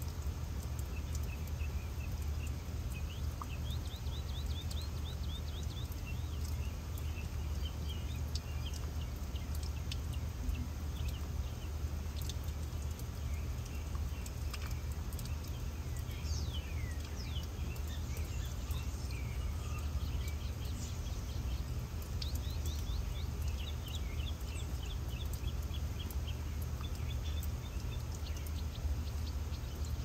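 Birds chirping and twittering in short, quick trills over a steady background of running water from a garden fountain and a low wind rumble.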